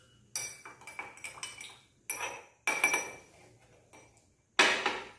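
Metal spoon clinking and scraping against a drinking glass as a mixture is stirred, with glass knocking on glass: a string of sharp ringing clinks, the loudest about four and a half seconds in.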